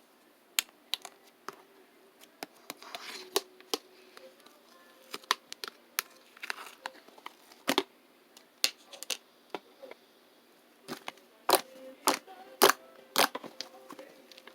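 Slime being pressed and squeezed by hand, giving irregular sharp clicks and pops that come more thickly near the end.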